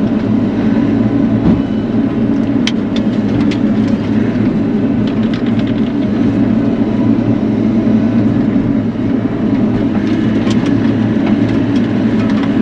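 Bobcat E42 mini excavator's diesel engine running steadily under working load, with a few short sharp cracks about three seconds in and again near the ten-second mark.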